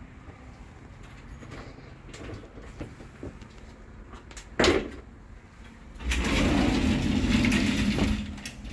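Sliding glass shower door rolling along its track for about two seconds, with a single sharp knock a second or so before it starts.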